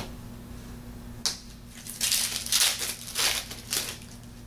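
A foil trading-card pack wrapper being handled and torn open: a short rustle about a second in, then about two seconds of crinkling and tearing.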